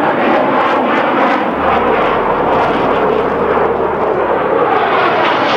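Loud, steady jet aircraft engine noise, a dense rushing sound with a higher hiss growing near the end.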